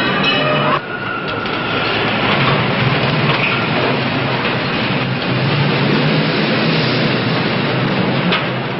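A dense, steady mechanical rumble with a low hum sets in abruptly just under a second in, as a held tone with many overtones stops.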